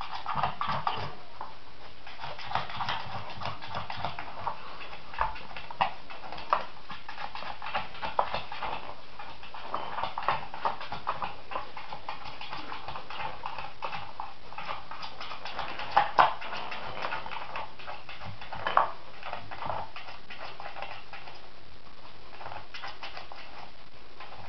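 Wooden dog puzzle toy with plastic pieces being nosed and pawed at by two dogs: scattered clicks and knocks of the pieces against the board and the tile floor, with a couple of louder knocks about two-thirds of the way through and a few seconds later.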